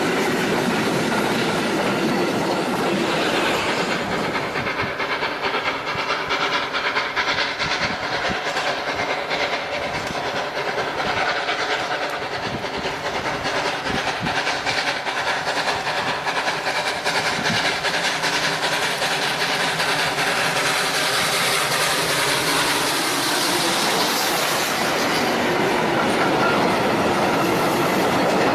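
Narrow-gauge train running along the track: a steady rumble with dense clicking from the wheels over the rails, and a held ringing tone from the wheels partway through.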